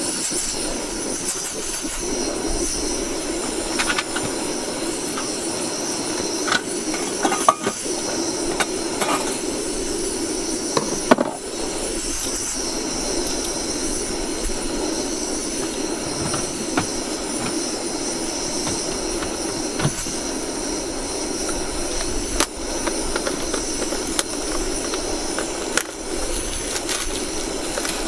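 Portable canister gas stove burner running steadily under a kettle, a constant roaring hiss. A few light knocks and clicks of things being handled, the sharpest about eleven seconds in.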